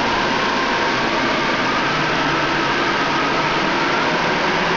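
Steady, unchanging rushing noise like static hiss, with a faint steady tone running through it.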